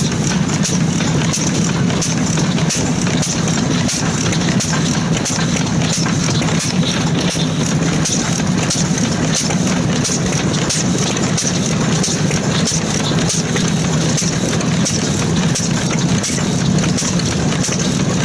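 Karui 4.5-horsepower kerosene stationary engine running slowly and steadily, a continuous low mechanical chugging laced with many small clicks.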